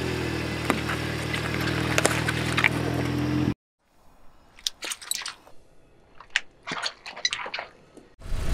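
Car engine running with a steady low hum as the tyre creeps over asphalt, a few sharp crackles of grit under the tyre. About three and a half seconds in, the hum stops, and only scattered crackles of grit crunching under the slowly rolling tyre are left.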